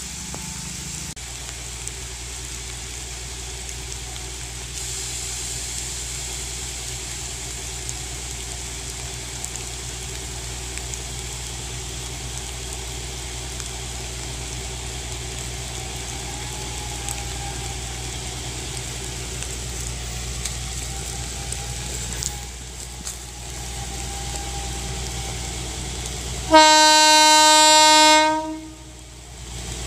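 Narrow-gauge diesel locomotive's horn blown once, loud, for about two seconds near the end, as the warning for an unmanned level crossing. Before it, steady rain hiss and the low rumble of the approaching locomotive.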